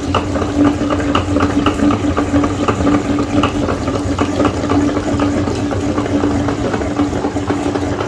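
Meat grinder running: a steady motor hum with regular light ticking, about three ticks a second.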